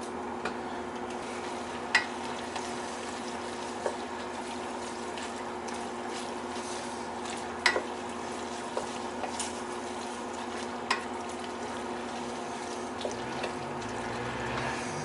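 A wooden spoon stirring pasta in a stainless steel pot, knocking sharply against the pot about five times, over the steady hum of a kitchen range hood fan running on low.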